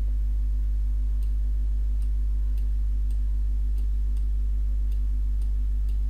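Steady low electrical hum, with faint light ticks recurring unevenly about one or two times a second.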